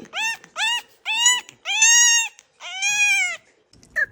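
French Bulldog puppy crying: a run of about six high whines, each rising and then falling in pitch. They grow longer and louder, the last two drawn out for well over half a second.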